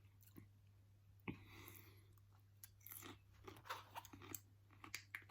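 Faint chewing and mouth sounds of a person eating a home-cooked tofu and egg dish, with scattered soft clicks and one slightly louder bite about a second in.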